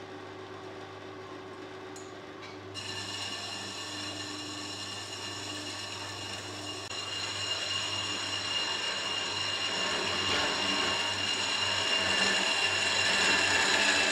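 Horizontal metal-cutting band saw cutting a stainless steel tube. The motor hums, and about three seconds in the blade bites into the tube, adding a high-pitched whine of several steady tones that grows louder as the cut deepens.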